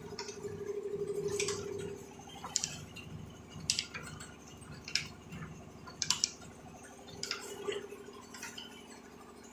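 A series of about seven sharp clicks or knocks, roughly one every second, over a low hum that fades out about two seconds in.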